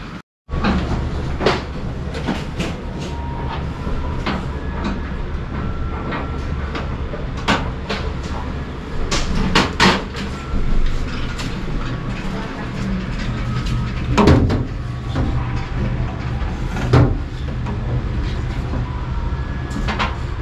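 Handling noise from air-conditioner installation work: scattered clicks and knocks of parts and tools, the loudest about ten and fourteen seconds in, over a steady low hum.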